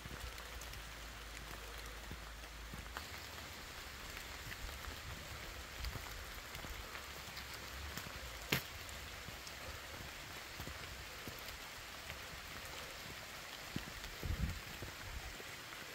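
Steady, even hiss of water, with footfalls on a woodland path; a single sharp click about halfway and a few heavier low thumps near the end.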